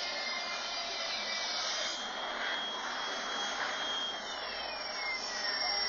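Science-fiction vehicle sound effect: a landspeeder's steady jet-like rushing hum with thin whining tones, one whine sliding down in pitch over the last couple of seconds.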